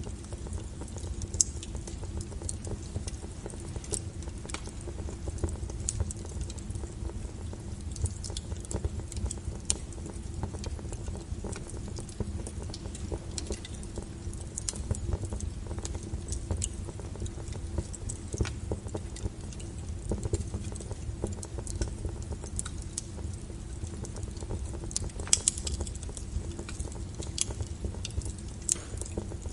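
Wood fire burning with a steady low rush and hiss, and irregular sharp crackles and pops of the firewood, a few louder pops about a second and a half in and again near the end.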